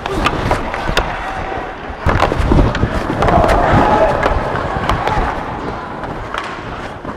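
Ice hockey goalmouth scramble heard close-up on a goalie's body mic: skate blades scraping and carving the ice, with many sharp clicks and knocks of sticks, puck and pads, busiest from about two seconds in.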